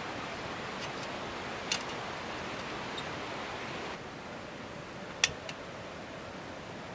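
Steady hissing background noise that drops slightly about four seconds in, with two sharp clicks, one just under two seconds in and one about five seconds in.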